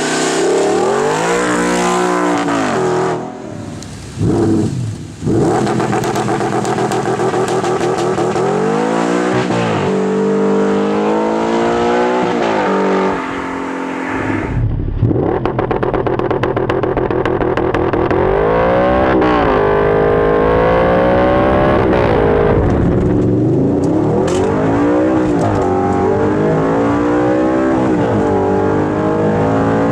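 Straight-piped Audi R8 4.2-litre V8 revving hard, its pitch climbing and falling again and again. The level drops briefly about four seconds in and again around fourteen seconds in.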